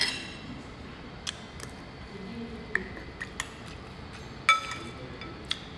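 Metal spoon clinking against a white soup bowl while scooping broth: a run of light, separate clinks. The loudest rings briefly, about four and a half seconds in.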